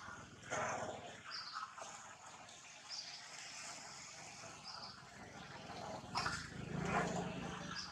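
Forest ambience: a short high chirp repeats about every one and a half seconds. Louder rustling-like noise comes about half a second in and again around six to seven seconds.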